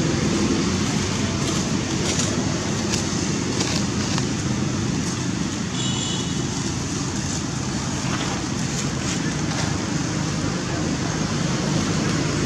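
Steady outdoor background rumble and hiss, with a brief high chirp about six seconds in.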